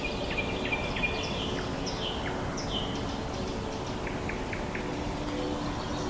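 High, thin bird calls: short chirps and quick down-slurred notes, several in the first three seconds and a run of four quick notes about four seconds in, with steady low tones held underneath.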